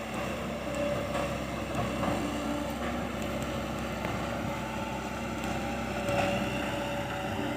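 Large excavator's diesel engine running steadily, with a few faint clicks and knocks of the machine working.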